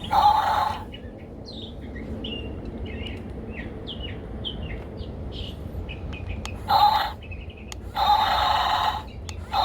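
Remote-control toy bulldozer's electric drive motors whining in short bursts as it is driven: briefly at the start, again near the end, and for about a second just before the end. Birds chirp in between.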